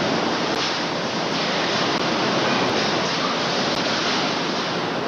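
Steady, loud roar of heavy factory machinery on a shovel-plant floor, an even din around a flywheel press working red-hot steel, with no distinct strokes standing out.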